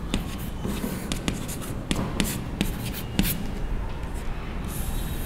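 Chalk writing on a chalkboard: irregular taps and short scratchy strokes as letters are formed.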